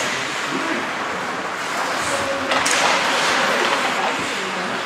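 Ice hockey rink ambience in a large echoing hall: a steady hiss of skates on ice and hall noise, with faint voices and one sharp knock about two and a half seconds in.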